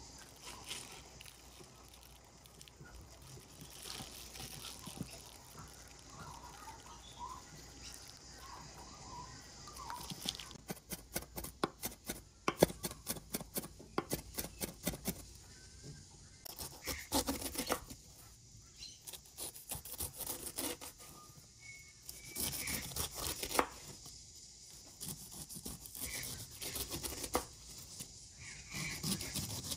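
Chef's knife chopping fast on a wooden cutting board, mincing garlic and red chili, in rapid bursts of sharp knocks that start about a third of the way in. Near the end, the knife cuts the skin off a pineapple.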